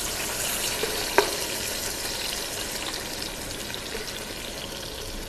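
Blended chili spice paste being poured into hot oil and sizzling with a steady crackle as it starts to sauté, easing slightly as it settles. A single sharp tick about a second in.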